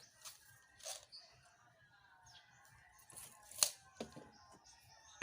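Scattered light clicks and taps of pieces of lawaan hardwood being handled, the sharpest about three and a half seconds in.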